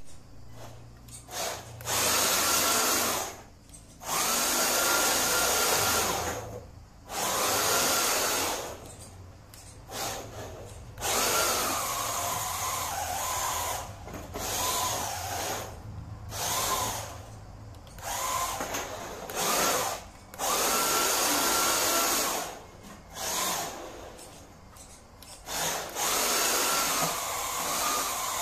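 The electric motor and drivetrain of an SG 1603 1/16-scale 4WD RC drift car whining in repeated bursts of throttle, each a second or two long. In each burst the whine rises in pitch and then holds, with short drops in between as the throttle is let off.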